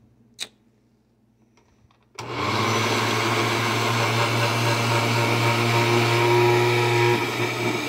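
A single click, then about two seconds in an Oster 14-speed countertop blender starts up and runs steadily, blending a thick fruit smoothie in its glass jar.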